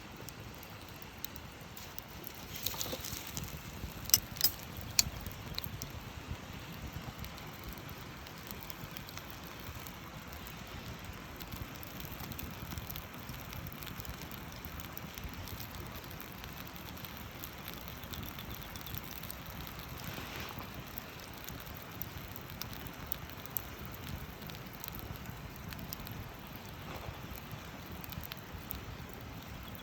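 Campfire burning: a steady low rush with scattered sharp crackles and pops, the loudest pops coming in a cluster about four to five seconds in.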